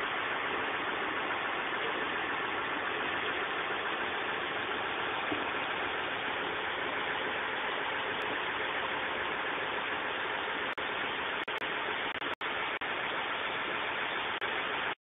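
Concrete pump truck's engine running steadily while pumping concrete: an even mechanical noise with a few brief dropouts about eleven to twelve seconds in.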